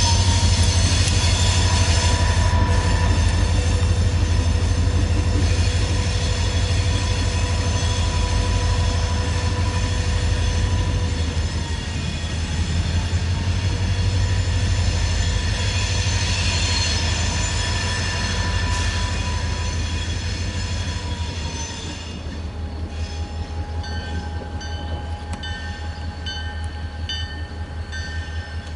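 Canadian National diesel locomotive running light through a curve: a steady low engine rumble with high squealing from the wheel flanges, getting quieter about two-thirds of the way through as it moves off. Near the end a high ringing repeats at an even pace.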